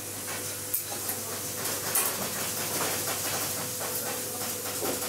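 Steady hissing workshop background noise with a faint steady hum and a few light clicks.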